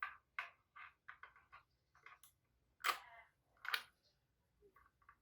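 Irregular clicks and knocks from handling a mechanical keyboard and its cable, two louder knocks about three seconds in.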